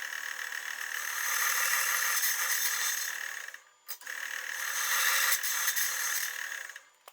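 Compressed-air blow gun hissing in two long blasts with a steady whistle in them, a short break between, blowing coolant off freshly machined brass parts.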